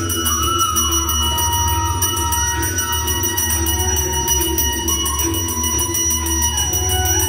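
Puja bells ringing without a break over devotional music with a stepping melody, steady throughout.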